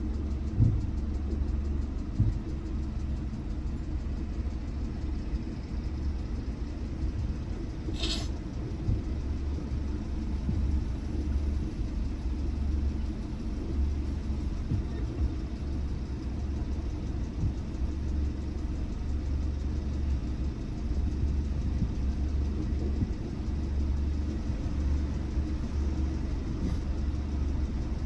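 Steady low rumble inside a car stopped at an intersection, with a single sharp click about eight seconds in.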